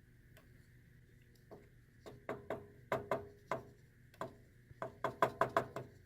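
A run of sharp ticking clicks that starts about a second and a half in and grows louder and faster toward the end, over a faint steady whine.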